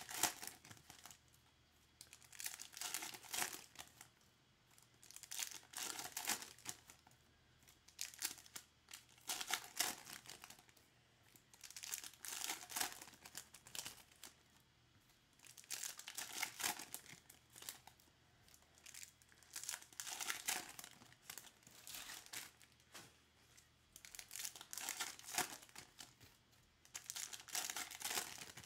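Foil wrappers of Topps Finest trading card packs crinkling and tearing as packs are ripped open one after another, a burst of crackle about every three seconds.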